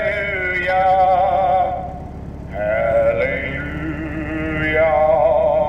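A man's voice singing long held notes with a wavering vibrato, in two drawn-out phrases with a short break about two seconds in.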